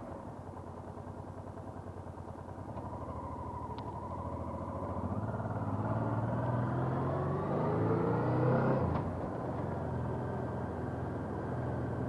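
Honda NT700V Deauville's V-twin engine gathering speed, its note rising steadily for several seconds and getting louder. About nine seconds in the note drops sharply, then it runs on at a steady pitch.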